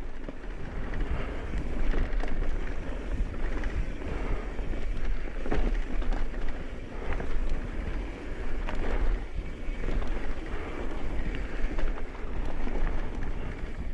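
Mountain bike descending a dirt singletrack: tyres rolling over dirt with frequent small knocks and rattles from the bike over bumps, and a steady rumble of wind buffeting the microphone.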